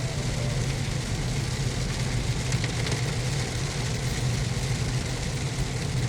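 Heavy rain falling on a 2015 Subaru WRX with the engine idling and the windshield wipers running: a steady low hum under the even hiss of the rain, with a few faint clicks.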